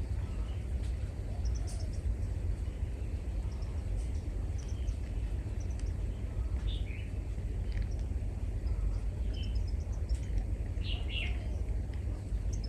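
Birds chirping in short, high calls scattered throughout, a few louder ones about seven and eleven seconds in, over a steady low rumble.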